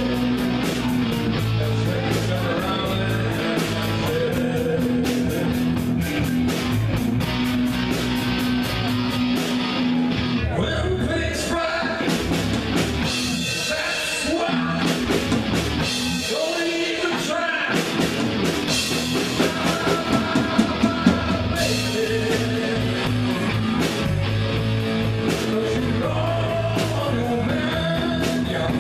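Live rock band playing: electric guitars, bass and drum kit, with a sung vocal. Around the middle the sound thins out, then a run of accents grows louder before the full band comes back in.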